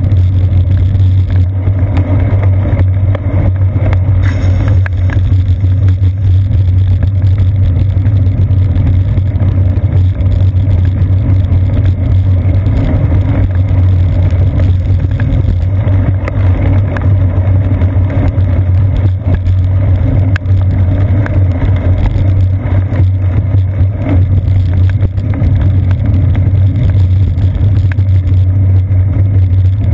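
Steady low rumble of road vibration and wind on a seat-post-mounted GoPro Hero 2 in its housing as the bicycle rides over wet pavement, with scattered faint ticks.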